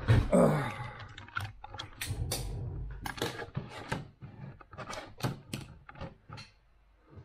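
Irregular clicks, taps and knocks of handling at a desk, with a denser, louder patch about a third of a second in; it goes almost quiet near the end.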